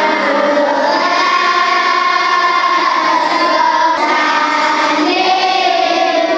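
A group of children singing together in unison, holding long drawn-out notes.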